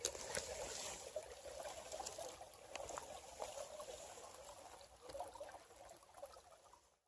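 Small creek water trickling faintly over rocks, with small scattered ticks, fading away near the end.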